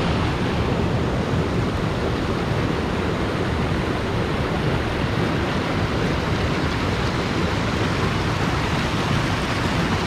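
Steady, loud rush of falling water from a waterfall.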